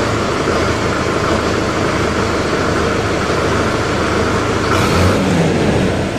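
Solis Yanmar 6024's four-cylinder diesel engine idling steadily, briefly a little louder about five seconds in.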